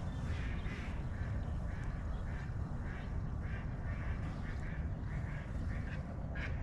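Ducks quacking in a long rapid run of short calls, about four a second, over a steady low rumble of wind and water.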